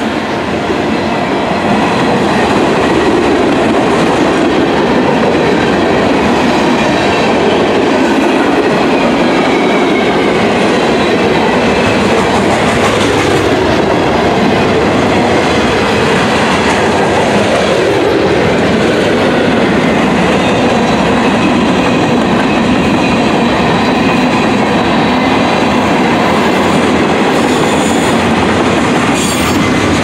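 Freight train passing close by: a steady loud rolling rumble of tank cars and boxcars, with wheels clicking over rail joints.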